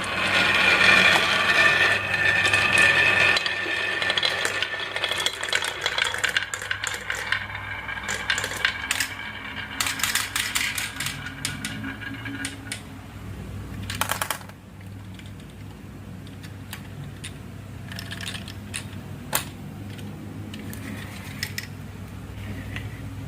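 Many glass marbles rolling and clattering down a wooden HABA marble-run track, dense and ringing at first, then thinning to scattered clicks as the last marbles run through.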